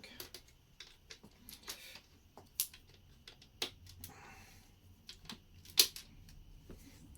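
Plastic Lego bricks and plates being handled and pressed together: scattered sharp clicks, the loudest about six seconds in.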